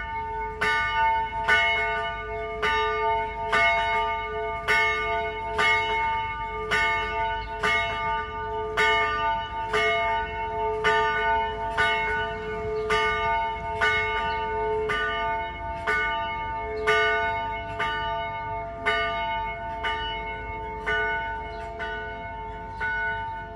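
Church bell rung in quick, even strokes, about three every two seconds, each stroke ringing on into the next.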